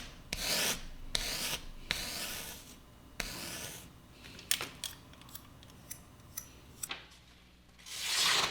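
Knife blade drawn along a whetstone in sharpening strokes, a rasping hiss roughly once a second for the first few seconds, then several light clicks, then one more stroke near the end.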